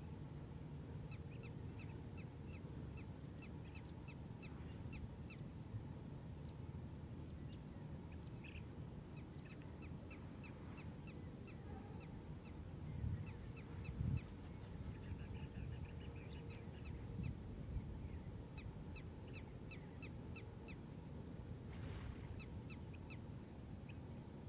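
Lakeside ambience: a bird repeating short high chirps, about three or four a second, in long runs over a low steady rumble. Two brief low thumps come about halfway through.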